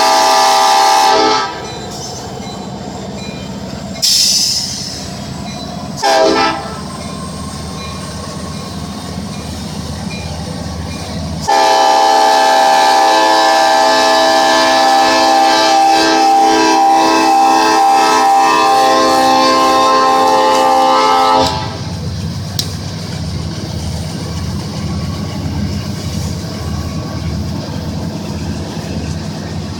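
Train horn blowing: a blast that stops after about a second and a half, two short toots about 4 and 6 seconds in, then one long blast of about ten seconds. After the long blast the train rumbles past, its wheels clicking over the rail joints in a steady rhythm.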